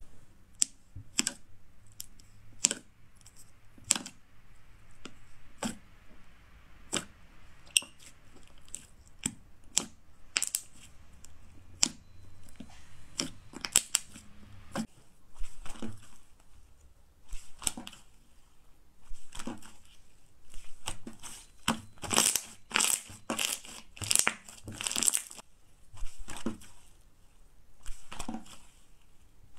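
White slime being squeezed, stretched and folded by hand, giving irregular sticky clicks and pops. They come thicker and louder in the later part.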